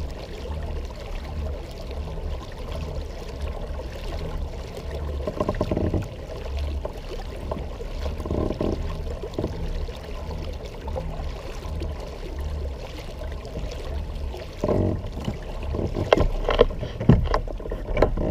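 Water washing and gurgling along the hull of a Native Watercraft Manta Ray Propel 12 pedal kayak being pedalled at about 4 mph, over a low, uneven rumble. Several sharp knocks near the end.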